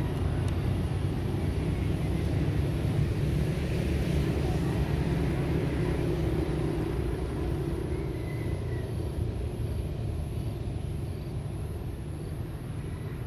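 Low rumble of road traffic, louder in the first half and slowly fading toward the end.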